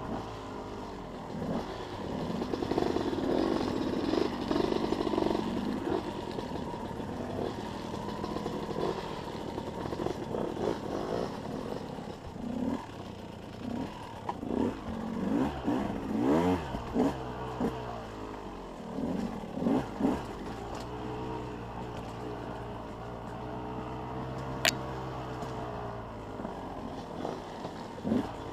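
Enduro dirt bike engine running on a trail ride, its pitch rising and falling as the throttle opens and closes. Through the middle come repeated knocks and clatter as the bike goes over roots and rocks, with one sharp click near the end.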